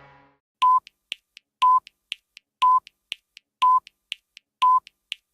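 Countdown timer sound effect: five short high beeps one second apart, with faint quick ticks between them. The last of a goal horn's sound dies away at the very start.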